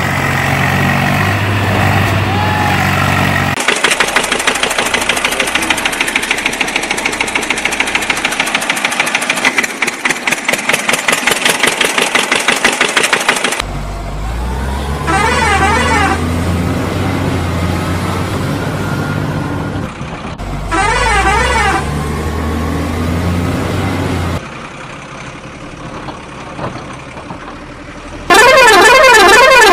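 Engine and horn sound effects for a toy tractor. A low engine runs, then gives way about four seconds in to a fast, even rattling pulse lasting about ten seconds. The low engine returns with two short warbling horn blasts, and a loud warbling horn sounds near the end.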